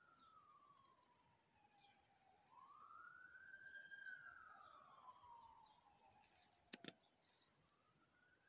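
Faint emergency-vehicle siren wailing, its pitch sliding slowly down, back up, down again and rising once more near the end. Two sharp clicks close together about seven seconds in.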